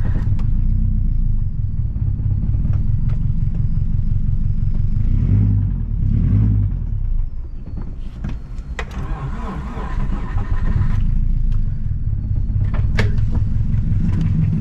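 Subaru Forester XT's EJ25 flat-four running rough under way, with a rattling knock from a failed rod bearing and a blown turbo. A couple of sharp clicks stand out, about nine and thirteen seconds in.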